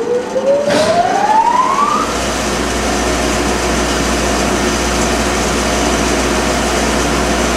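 The 30-HP spindle motor of a Blanchard 20K-36 vertical spindle rotary surface grinder starting up. A whine rises steadily in pitch for about two seconds as the 20-inch grinding wheel comes up to speed, then the machine settles into steady running.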